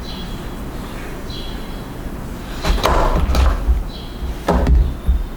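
Knocks and dull thumps of hardware being handled and set down on a desk, in a cluster of several knocks about two and a half seconds in and a shorter one near the end.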